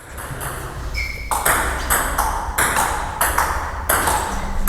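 Table tennis push rally: the celluloid-type ball clicks off the rackets and the table in an even rhythm, about one and a half hits a second, over a low room rumble. A brief high squeak sounds about a second in.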